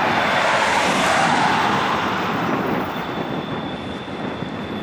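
Double-stack intermodal well cars rolling past: a steady rumble and rush of steel wheels on rail, swelling about a second in and easing slightly toward the end.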